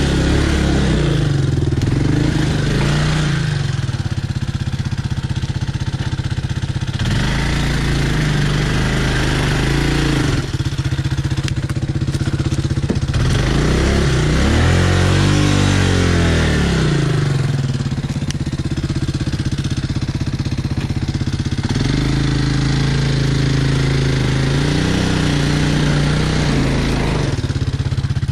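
ATV engine running and revving up and down repeatedly, with one long rise and fall in pitch about halfway through, as the quad is powered through a mud hole.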